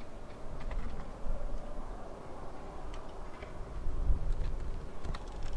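Wind buffeting the camera microphone in low rumbling gusts that strengthen near the end, over a steady outdoor background noise, with a few faint scattered ticks.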